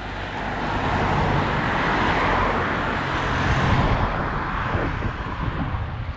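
Cars passing by on a paved road: engine and tyre noise rising to a peak about three to four seconds in, then fading.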